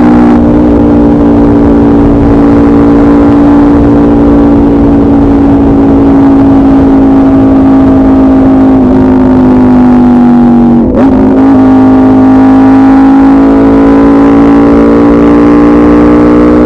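Aprilia RSV4 RF's V4 engine through a de-catted SC Project CRT exhaust, running loud at steady, fairly high revs with its pitch slowly sinking. About eleven seconds in there is a brief dip and break in the note, then it carries on and climbs a little.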